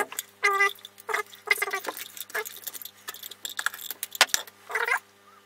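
An animal squeaking: short high-pitched calls repeated several times at uneven intervals, over a faint steady hum.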